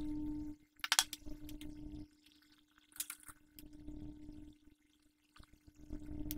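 A few sharp clicks and taps from handling painting tools on the desk, over a steady low hum and a low rumble that cuts in and out abruptly.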